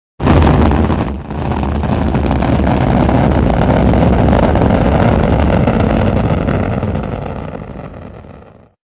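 Rocket engines firing at launch: a loud, deep, rumbling noise that cuts in suddenly, dips briefly about a second in, then fades away near the end.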